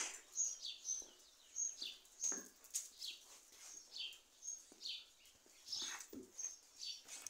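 Short, high-pitched animal squeaks, each falling in pitch, repeated irregularly about once or twice a second; the loudest comes right at the start.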